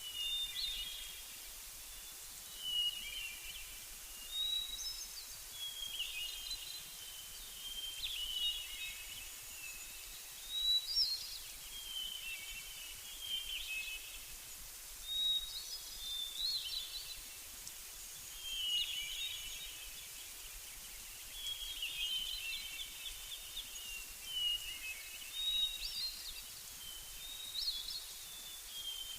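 Songbirds singing: short, quick chirping phrases every second or two, over a steady background hiss.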